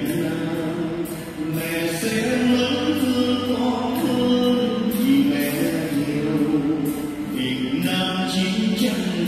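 Vietnamese hymn to the Virgin Mary, a man singing through a microphone over instrumental backing, with long held notes.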